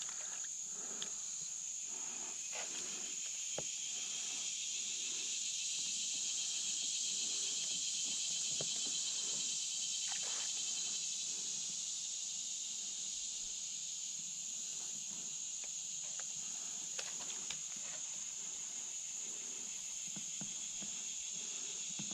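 Steady, high-pitched chorus of insects, crickets or similar, trilling continuously and swelling a little partway through, with a few faint clicks and knocks.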